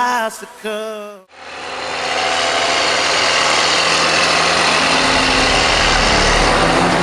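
A sung pop song fades out in the first second, and then the steady running noise of harvest machinery comes up: an engine's low hum under a dense, even rush, holding steady once it has faded in.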